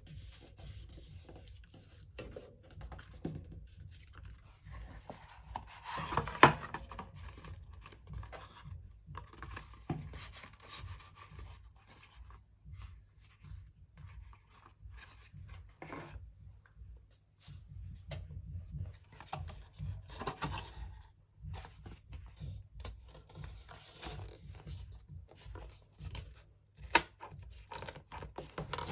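Cardboard and paper being handled and worked by hand: scattered rustles, rubs and scrapes, with a sharp tap about six seconds in and another near the end.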